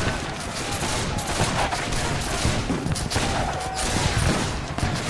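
Battle rifle fusillade: many overlapping shots crackling continuously without a pause.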